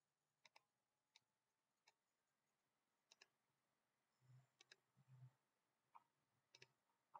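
Computer mouse button clicking, faint: single clicks and quick double-clicks, about seven click events, several of them doubled.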